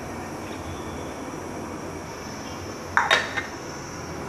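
Half a cup of cooking oil poured from a plastic measuring cup into a nonstick wok, over a steady low hiss, with a few sharp clinks of the cup and pan about three seconds in.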